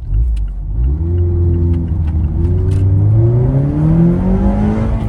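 Mazda ND Miata four-cylinder engine accelerating, revs climbing steadily through one gear with its intake induction sound from an aftermarket cold air intake, heard inside the closed cabin.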